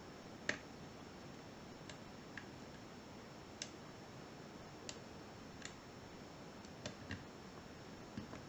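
Lock pick and tension wrench working the pins of a Sargent 5-pin lock cylinder during single pin picking: small sharp metallic clicks at irregular intervals, the loudest about half a second in.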